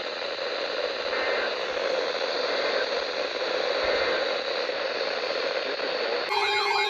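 Steady radio static hiss from a weather-radio broadcast between messages. About six seconds in it cuts off abruptly to a warbling electronic siren wail.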